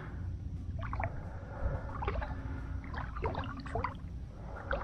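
Shallow water gurgling and trickling around a wading angler, with scattered small splashes over a steady low rumble.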